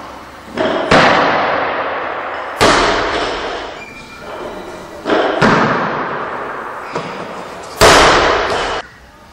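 Four loud slams a couple of seconds apart, each ringing out in a long echoing decay.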